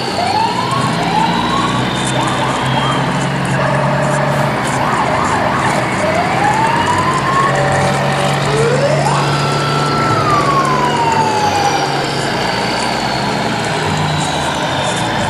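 Vehicle-and-siren sound effects: a steady engine-like hum with rising and falling siren-like whistle tones over it, one long rise about nine seconds in, held briefly, then sliding down.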